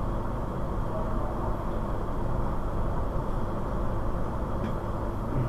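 Steady background noise, an even low rumble without speech or any distinct event.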